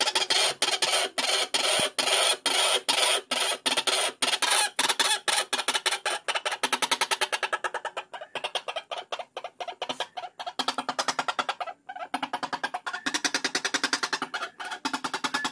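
Lure recording of white-breasted waterhen calls: a fast, harsh run of repeated notes, several a second, that goes on without a break.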